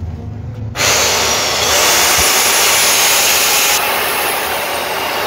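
Heavy-duty electric chainsaw switched on a little under a second in, its motor whirring up to speed and then running loud and steady in a test run.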